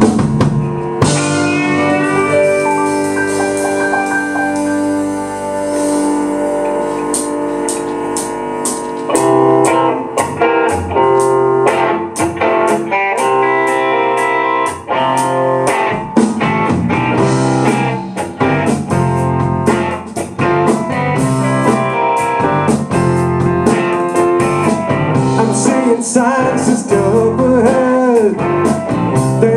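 Live classic-rock band playing an instrumental intro: held chords open it, drum hits come in around seven seconds, and the full band of electric guitar, bass, keyboard and drums is playing from about nine seconds in.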